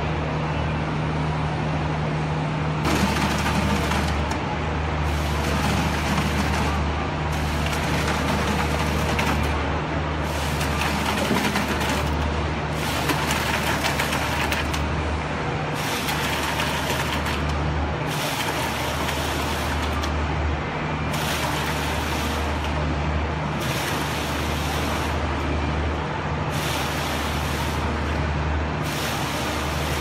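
Truck-mounted concrete mixer pump working: a steady low engine drone, with a rush of noise about every two and a half to three seconds as each pump stroke drives a surge of concrete out of the delivery pipe.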